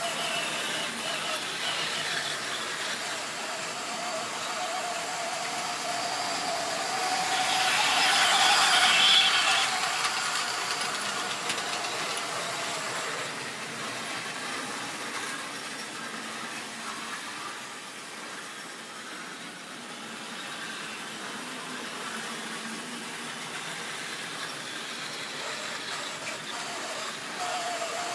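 Model railway trains running on the layout: the steady whine of small electric locomotive motors over the rushing of wheels on the track. The sound swells to its loudest about eight to nine seconds in, then eases off, and the whine comes back near the end as a train passes close by.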